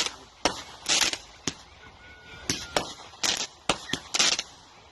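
Backyard consumer fireworks going off in quick succession: a string of sharp bangs mixed with short, noisier bursts, several a second at times, with a lull in the middle.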